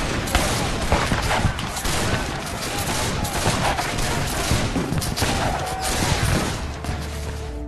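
Battle gunfire: many shots fired in rapid, irregular succession, like a fusillade. It cuts off abruptly near the end.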